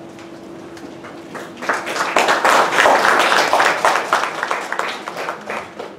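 Audience applauding, starting about a second and a half in, strongest around the middle and fading away near the end, as the next speaker is welcomed to the microphone.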